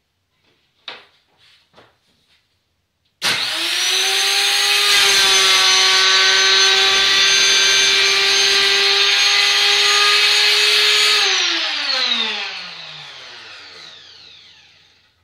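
A table-mounted router with a cove bit is switched on about three seconds in, runs at a steady high whine through a routing pass, then is switched off and winds down with a falling pitch over about three seconds. A few light knocks come before it starts.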